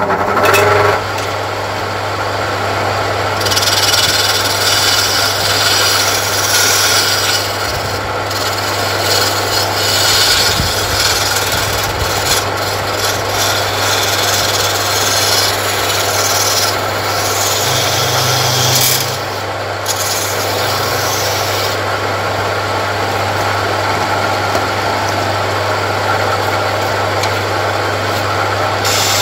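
Homemade wood lathe running, its single-phase electric motor humming steadily, while a turning chisel cuts the spinning wooden workpiece and later a flat rasp is held against it. The result is continuous scraping and rasping of wood.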